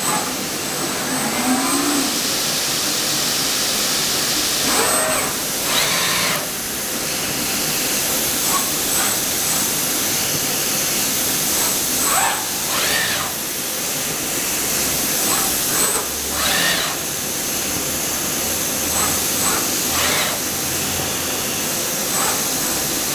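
Steady hiss of the vacuum suction system on a robotic pick-and-place gripper handling carbon-fibre textile, running the whole time. Faint voices rise over it now and then.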